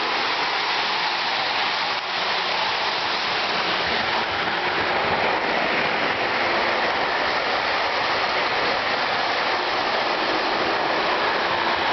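Lionel 2-6-2 Prairie model steam locomotive and passenger cars running on O-gauge track: a steady rushing rumble that holds at an even level.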